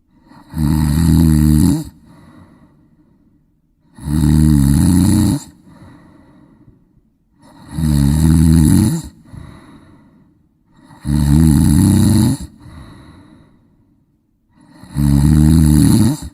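A person snoring in a slow, regular rhythm: five loud snores, each about a second and a half long, come roughly every three and a half to four seconds, with softer breathing between them.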